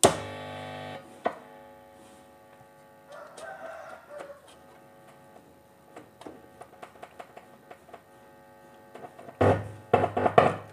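Mixer amplifier's power amp stage buzzing and humming through a speaker as it is tested by hand. A loud buzz opens it, a steady hum with several pitches runs under scattered ticks, and loud crackling bursts come near the end. This shows the power amplifier stage is passing signal and working.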